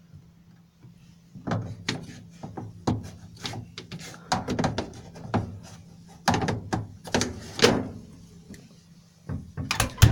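Plastic fluff filter and fittings of a Hotpoint condenser tumble dryer being handled: a run of irregular clicks, knocks and rattles, loudest about three-quarters of the way through and again right at the end.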